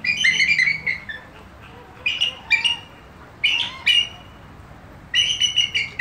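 Bald eagle calls: rapid strings of high, piping chitter notes in four short bouts.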